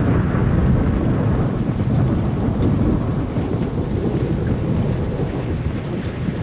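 Thunderstorm: rain falling steadily under a low, continuous rumble of thunder.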